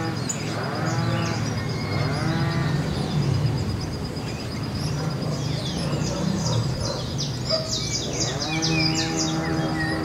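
Cattle mooing in drawn-out calls, two near the start and one near the end, while small birds give quick high-pitched chirps in the middle and later part.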